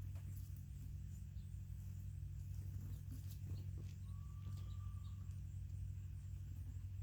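Quiet outdoor background with a steady low hum and scattered faint ticks. A single faint, long, level whistled note comes about four seconds in.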